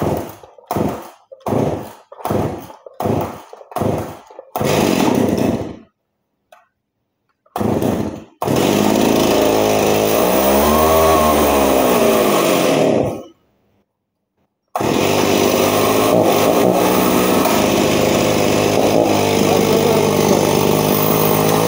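Older STIHL chainsaw being pull-started: a quick series of rasping pulls on the starter cord, about half a second apart. The engine catches about eight seconds in, revs up once and back down, then cuts out. A couple of seconds later it is running steadily again.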